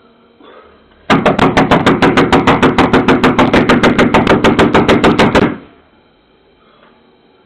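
Rapid, loud pounding on a front door, about nine blows a second for roughly four seconds, starting about a second in. It is urgent banging to rouse occupants who are not answering, picked up by the doorbell camera's microphone.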